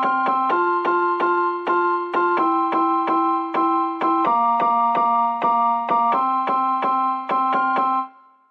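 Background music: a keyboard tune of evenly struck notes, about three a second, over held chords. It cuts off about eight seconds in.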